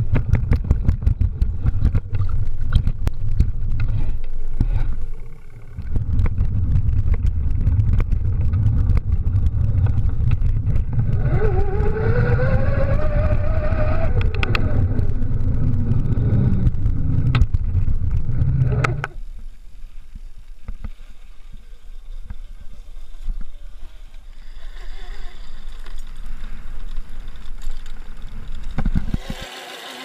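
Conway E-Rider electric mountain bike being ridden: a heavy low rumble of riding noise on the bike-mounted microphone, full of clicks and rattles from jolts over steps and pavement. About halfway through, the electric drive gives a whine that rises in pitch. The noise drops off after about two-thirds of the way.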